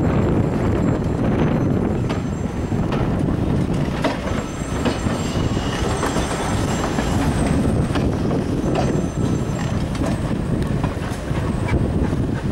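Heritage railway passenger coaches rolling past, a steady rumble with wheels clicking over the rail joints. A faint high wheel squeal comes in around the middle.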